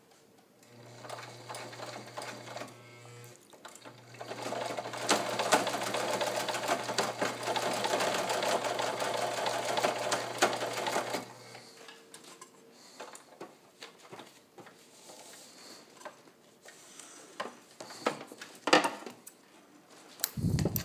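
Kenmore 158.1750 zigzag sewing machine with its 1.2-amp motor, stitching a zigzag through three layers of thick webbing. It makes a short run of about three seconds, pauses briefly, then sews steadily for about eight seconds and stops. Light clicks and knocks of the fabric being handled follow.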